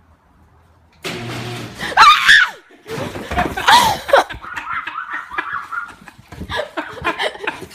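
People shrieking and laughing: a sudden high scream about two seconds in, another shriek a little later, then laughter.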